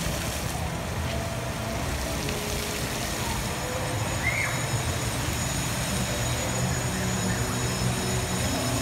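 Steady outdoor background noise with a low hum, and a short high chirp about four seconds in.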